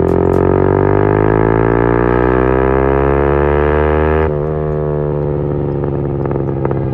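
Yamaha MT motorcycle engine pulling under throttle, its note rising steadily. About four seconds in the throttle is closed and the note drops to a lower, rougher sound, with a few exhaust pops near the end.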